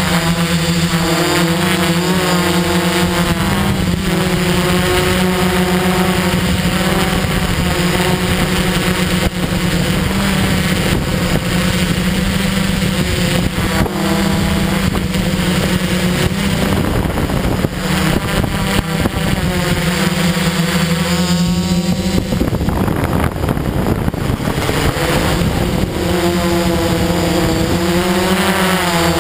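Multirotor drone's electric motors and propellers whining close to the microphone, a steady hum whose pitch drifts up and down as the motors adjust. For a few seconds about three-quarters of the way through, the tones waver and blur.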